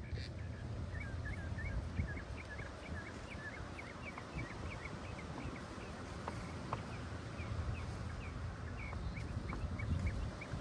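Small birds chirping rapidly and continuously, several short chirps a second, over a low outdoor rumble, with a few faint clicks.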